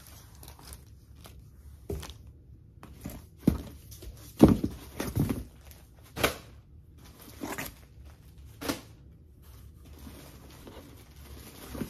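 Rummaging through a cardboard shipping box: plastic-wrapped packages rustle and crinkle, with scattered knocks against the cardboard. The loudest cluster comes about four to five seconds in.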